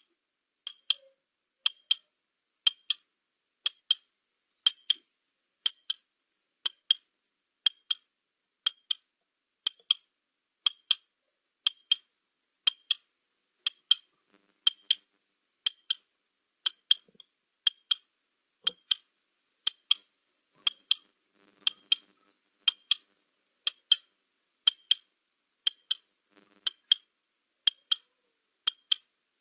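Clock-style ticking of a countdown timer sound effect, one sharp tick about every second, running through a 30-second answering time.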